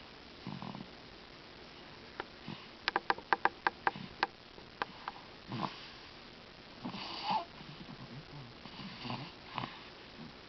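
A sleeper's faint snoring: several slow, rough breaths. A quick run of about eight sharp clicks a little before the middle is louder than the snores.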